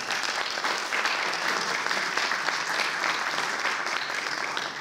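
Applause: many hands clapping steadily, the panel at the table clapping along with the audience.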